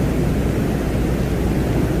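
Space-ambience soundscape presented as the sound of Venus: a steady, deep rumbling noise like a low roar of wind, with no distinct tones or events.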